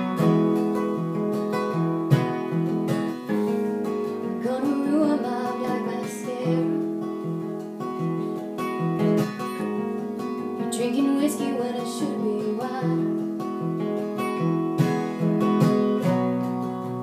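Acoustic guitar strummed and picked through a slow song, with a woman's voice singing over parts of it.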